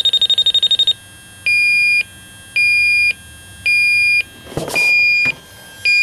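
Yellow Jacket AccuProbe heated-sensor refrigerant leak detector alarming: a fast run of high beeps for about the first second, then slower, lower beeps about once a second, signalling R-410A found leaking at the condenser coil. A short rustling noise comes about three-quarters of the way through.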